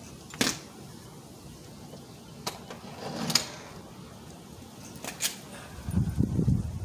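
Several sharp clicks and knocks as the wooden table top and its metal fold-down bracket are handled and folded down, then a corded electric jigsaw starts cutting the table's wooden edge in short pulsing bursts near the end.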